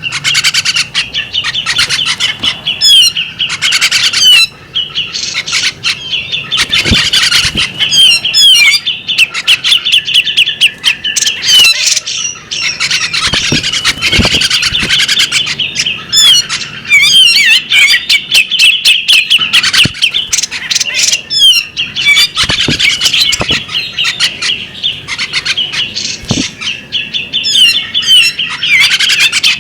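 Female magpie robin singing: a fast, almost unbroken stream of chirps, whistles and rapid trills.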